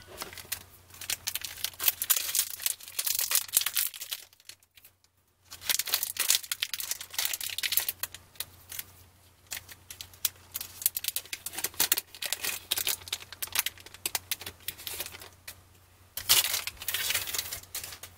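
Foil trading-card pack wrapper crinkling and tearing as it is peeled open by hand, in spells of dense crackling with a short pause about four seconds in and a louder burst near the end.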